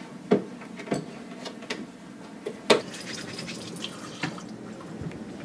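Dishes and utensils clinking and knocking at a kitchen counter: about six sharp clinks spread over several seconds, with light water or pouring sounds.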